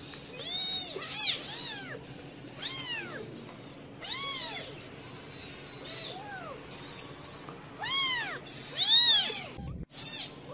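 Newborn kittens mewing: a string of short, high-pitched mews, each rising and falling in pitch, one every second or so. There is a brief low thump near the end.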